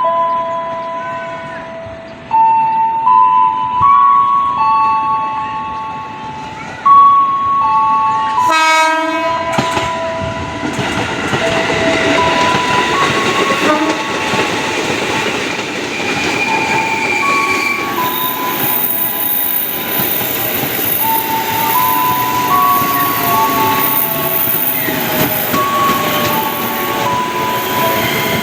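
Electric commuter train running slowly past, its traction motors whining in steady notes that step up and down in pitch. A horn sounds briefly about eight seconds in, then the noise of the passing cars and wheels on the rails fills in and stays loud.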